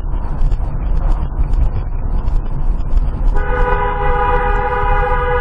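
Road and engine rumble heard from inside a moving car, then about three seconds in a vehicle horn starts a long, steady, two-tone blast.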